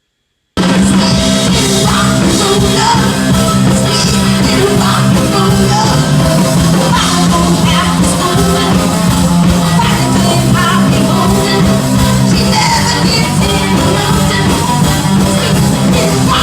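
Live rock and roll band playing, with a singer, cutting in abruptly about half a second in.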